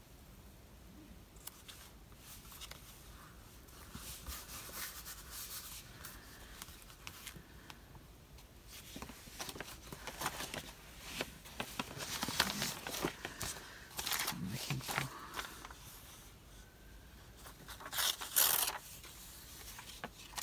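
Paper and card being handled on a craft desk: rustling, crinkling and scraping in short irregular bursts, the loudest a little before the end.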